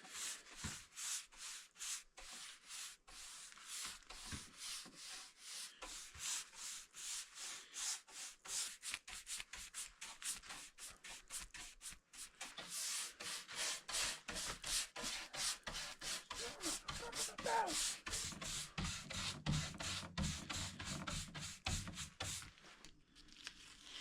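Rhythmic back-and-forth rubbing strokes on the cabinet's oak top, about two to three a second, as teak oil is worked into the wood.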